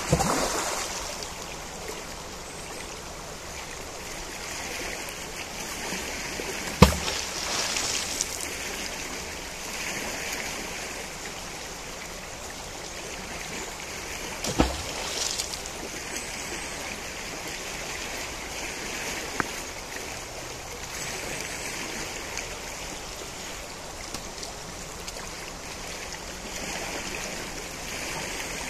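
River water flowing in a steady rush that swells and eases, with a few sharp knocks, the loudest about seven and fifteen seconds in.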